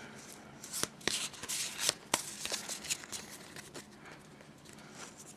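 Pokémon booster pack being opened by hand: the foil wrapper crinkling and tearing, and the cards rustling. It is busiest in the first three seconds and settles to light handling near the end.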